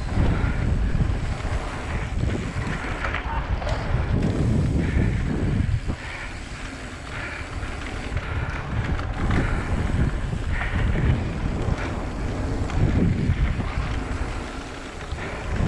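Wind buffeting a GoPro microphone on a mountain bike descending at speed, with the tyres rolling over a hard-packed gravel trail. The rumble rises and falls as the bike speeds up and carves through berms.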